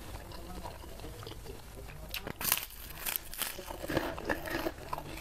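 A crisp white lattice cracker being bitten and chewed: a run of sharp crunches starting about two seconds in, the loudest first, then lighter crunching.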